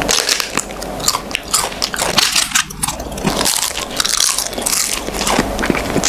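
Close-miked biting and crunching on a crisp crepe cone filled with chocolate ice cream, a run of sharp, irregular crackles with each bite and chew.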